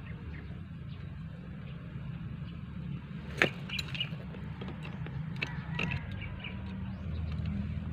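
Metal pipe fittings and a pipe wrench being handled at a water meter connection: one sharp click a little over three seconds in, then a few lighter clicks and clinks over the next few seconds, over a steady low rumble.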